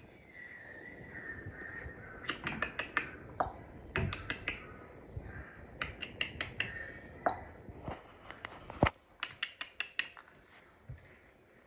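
Quick runs of sharp clicks, four to six in fast succession, recurring every second or so, with one deeper knock about three-quarters of the way through.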